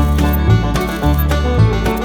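Background music in a bluegrass or country style, with plucked strings such as banjo and a steady beat.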